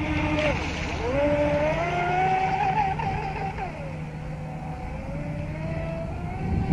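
Atomik Barbwire XL RC boat's brushless motor whining on a 3S battery, its pitch climbing and falling as it speeds up and slows, over a steady low rumble.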